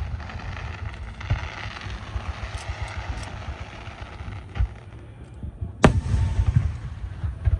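Fireworks going off: a steady crackling with a few small pops, then a loud sharp bang about six seconds in, followed by a run of low rumbling crackles.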